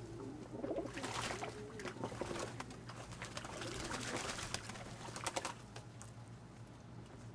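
Old German Owl pigeons cooing while others bathe in a shallow tub of water, splashing and flapping their wings. The splashing is loudest about a second in and again around five seconds.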